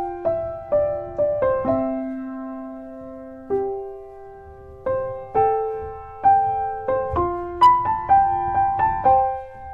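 Background music: a piano-like melody of single struck notes, each fading after it is played. It has a long held low note about two seconds in and quicker notes near the end. No singing.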